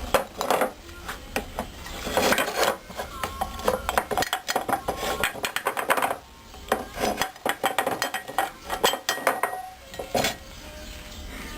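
Metal parts of a compressor's crankcase being handled during a teardown: repeated clinks, knocks and rattles, some with a short metallic ring.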